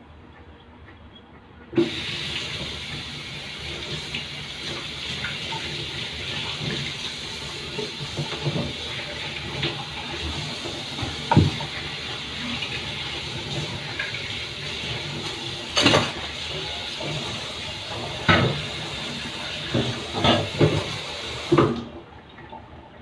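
Kitchen tap running: the water comes on suddenly about two seconds in and is shut off near the end, with occasional knocks and clatters in the sink while it runs.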